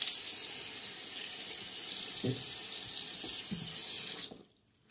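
Sink faucet running into the basin, shut off about four seconds in.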